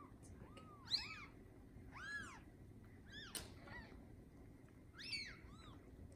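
Newborn Bengal kittens mewing: about a dozen short, high-pitched squeaks, each rising and falling, some in quick runs of two or three.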